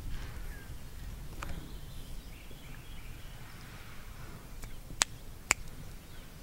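Riverbank ambience: a low wind rumble on the microphone with faint bird calls. About five seconds in come two sharp clicks, about half a second apart.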